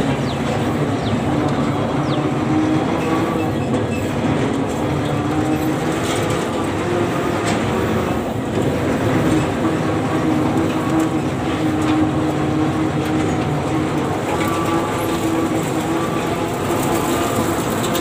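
Combine harvester's diesel engine running steadily as the machine drives along a rough dirt track, with scattered metallic clatter from the moving machine.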